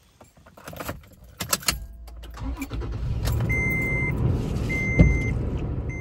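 Keys jangling and a few clicks, then a car engine running with a steady low rumble while an electronic warning chime beeps three times, about a second apart; a sharp knock comes near the end.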